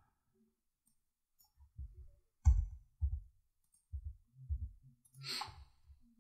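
Scattered computer mouse clicks and low desk thumps, about ten short separate knocks with a brief soft hiss about five seconds in.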